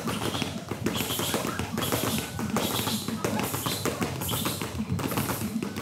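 Muay Thai training in a hall: gloved punches and kicks smacking on strike pads, many quick irregular hits from several pairs drilling at once.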